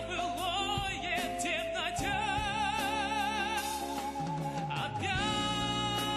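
A high male singing voice holds long notes with a wide vibrato, with instrumental backing beneath. One note is held for about three seconds, and a new one starts near the end.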